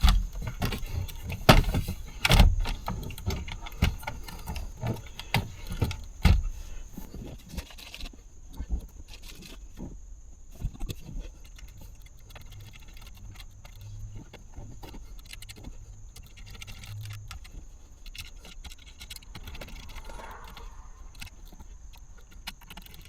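Clicks, knocks and small rattles of plastic parts and wiring connectors being handled and plugged in, sharpest in the first few seconds, then lighter and more scattered.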